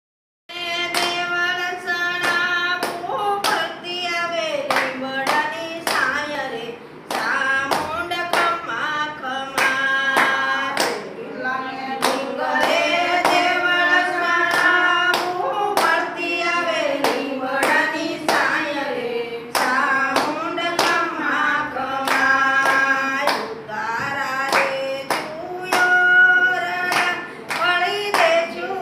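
Group of women singing a devotional song to the goddess Chamunda in unison, keeping time with steady hand-clapping, a couple of claps a second.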